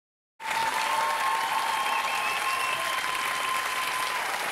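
Theatre audience applauding, starting abruptly about half a second in, with a long steady whistle over the clapping.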